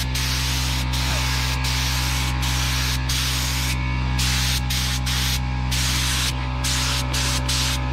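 Compressed air hissing through a gravity-feed paint spray gun as red paint is sprayed, the hiss cutting off briefly again and again as the trigger is let go between passes. A steady low hum runs underneath.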